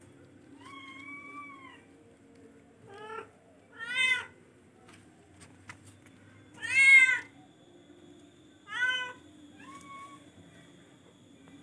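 Kittens meowing repeatedly: about six short, high-pitched meows spaced a second or two apart, the loudest about seven seconds in.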